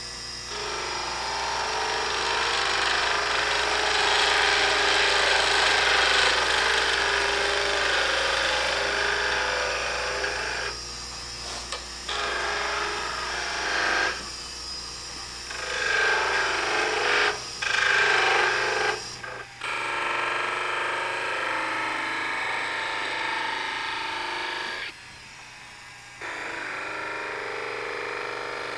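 Turning chisel cutting a spinning wooden spindle on a Carba-Tec mini lathe: a steady scraping, shaving sound of the tool on the wood over the lathe's motor hum, breaking off briefly several times.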